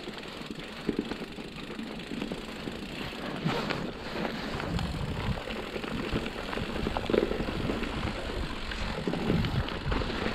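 Mountain bike descending a rough trail: tyres rolling over dirt and stones, with a constant clatter of small knocks and rattles from the bike. Wind noise on the camera microphone throughout.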